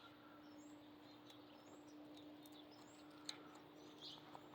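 Near silence: quiet outdoor background with a few faint, brief bird chirps, a faint steady hum, and a single sharp click a little past three seconds in.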